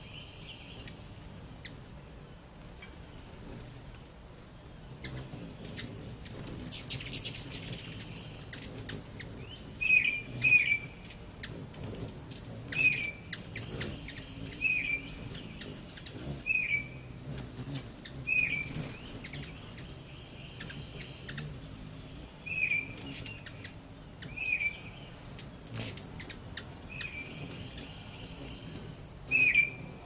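Backyard songbirds chirping: a short call repeated every second or two from about a third of the way in, among other scattered sharp bird calls.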